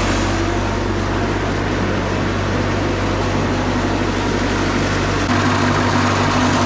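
Wood-Mizer LT40 Super Hydraulic bandsaw mill running steadily. About five seconds in its note changes: the deepest tone drops away and a higher steady tone comes up.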